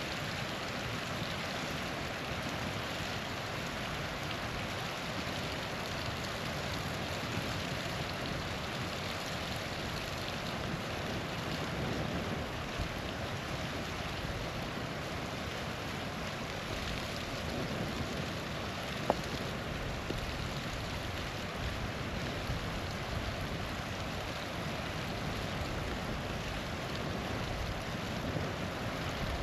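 Small waterfall rushing steadily, with a campfire crackling now and then and one sharp pop about two-thirds of the way through.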